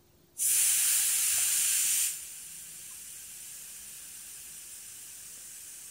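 Air hissing out of a tubeless motorcycle tyre through its valve as the valve core is pressed to let pressure down. A loud hiss for about a second and a half, then a quieter steady hiss that stops near the end.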